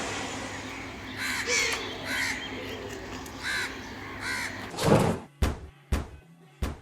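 A bird cawing about five times over fading background noise, then a run of heavy thuds near the end.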